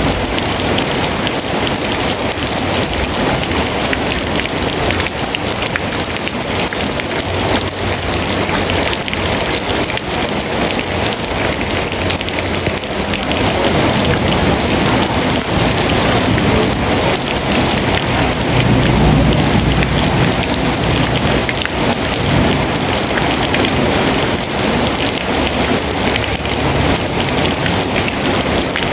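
Steady heavy rainfall, a dense even hiss of drops on surfaces. A low rumble swells and fades about two-thirds of the way through.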